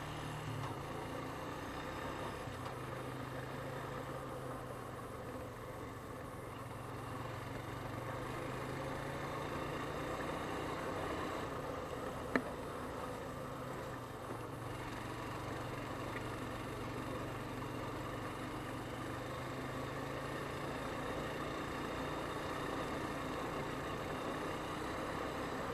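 ATV engine running steadily as the quad rides along a dirt trail, heard from the machine itself. A single sharp click about halfway through.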